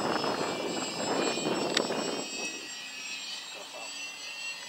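Radio-controlled model Yak-3 warbird flying overhead: a rushing propeller-and-motor pass that fades about two seconds in, leaving a faint steady high whine.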